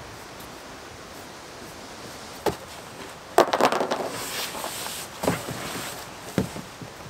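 Cardboard tent walls and floor being handled as a person crawls inside: a knock about two and a half seconds in, then a burst of clicks and rustling scraping, and two more dull knocks against the cardboard.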